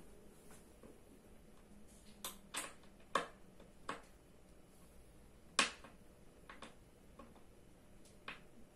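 Office chair parts being handled during assembly: about seven sharp, irregular clicks and light knocks of plastic and metal parts and screws, the loudest about halfway through.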